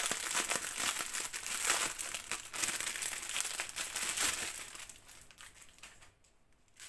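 A clear resealable plastic package holding strips of little bags of diamond painting drills being handled, its plastic crinkling with many small crackles. The crinkling tapers off about five seconds in and goes almost quiet near the end.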